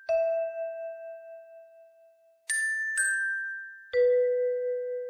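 Slow tune of struck bell-like notes, each ringing on and fading: one long note, then three more close together from about two and a half seconds in.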